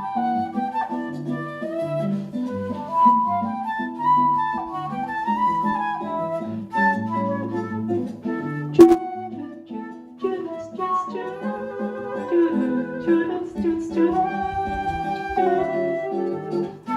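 Live instrumental bossa nova: a flute melody over guitar chords. A single sharp click comes about nine seconds in.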